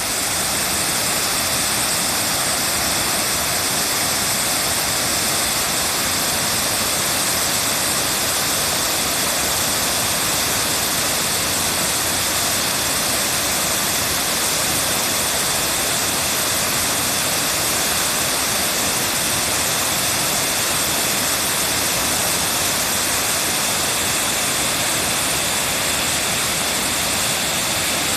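Oshinkoshin Falls: water pouring and crashing down the waterfall in a steady, unbroken rush.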